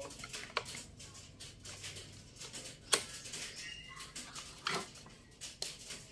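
A few faint clicks and knocks of audio cable connectors being handled and plugged into the output jacks of a signal processor, the sharpest about three seconds in.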